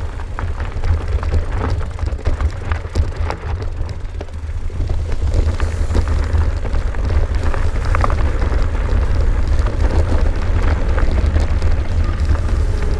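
Wind buffeting the camera microphone with a heavy low rumble, over tyres crunching on loose gravel and the e-bike rattling as it rolls downhill. The rumble grows a little louder about five seconds in.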